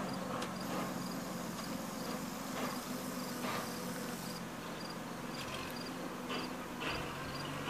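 Dodge WC62 6x6 truck's 230 flathead straight-six running steadily at low speed from some distance, with insects chirping in a rhythmic high pulse throughout.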